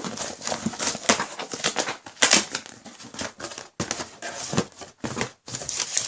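A shipping package being opened by hand: an irregular run of crinkling, rustling and tearing of packaging, with sharp crackles and clicks throughout.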